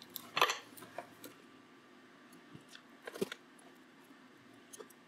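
A few small, sharp clicks and taps from handling tools and parts at a soldering bench: several in the first second and a half, a louder one about three seconds in, and a faint one near the end.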